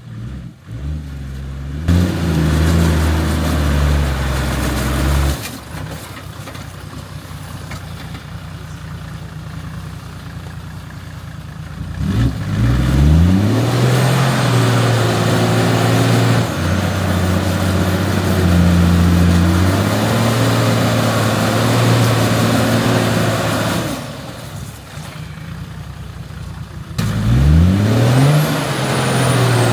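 Four-wheel-drive vehicle's engine revving in spells: held revs, a sharp rise about twelve seconds in and another near the end, with quieter stretches between.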